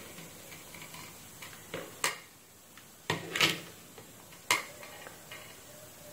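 Four or five sharp clicks and clinks of small hard tools handled on a workbench during soldering, with the loudest cluster about three and a half seconds in.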